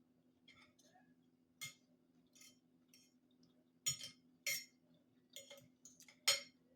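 Eating utensil clinking against a plate several times at irregular intervals, with softer clicks between.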